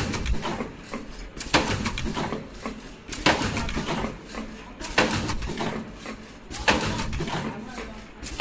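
Richpeace automatic surgical mask machine running, with a sharp clack about every 1.7 seconds, each followed by a second or so of machine noise that dies away: the machine's steady production cycle.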